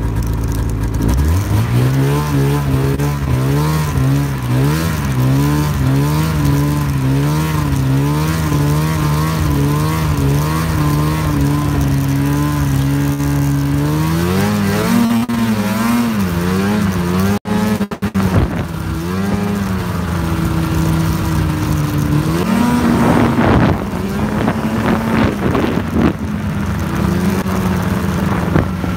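Snowmobile engine revving up about a second in and running under way, its pitch wavering up and down. About halfway through it climbs higher, then rises and falls with the throttle.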